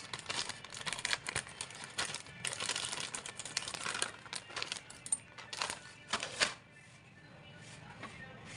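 Plastic instant-noodle packet crinkling and rustling as it is handled, with a run of irregular crackles and clicks and one sharper rustle about six and a half seconds in, dying down near the end.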